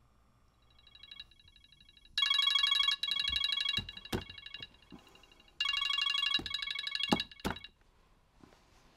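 Smartphone ringing with a fast-pulsing electronic tone. It fades in faintly, turns loud about two seconds in, breaks off briefly in the middle and stops near the end. Several sharp knocks sound as a hand fumbles with the phone on a bedside table.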